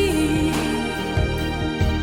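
Pop song recording, an instrumental passage: a held melody note slides down right at the start over sustained chords, with a drum hit about every 0.6 seconds.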